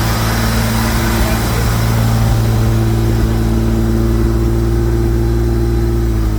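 Jaguar XJ6 straight-six engine running steadily at idle, its note dipping slightly near the end.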